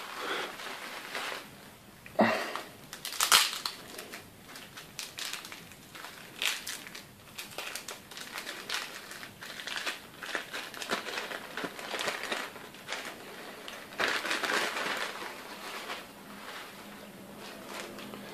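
Plastic packaging crinkling and crackling in the hands with scattered sharp clicks, one louder snap a few seconds in and a longer rustle near the end, as a new CPU is unwrapped.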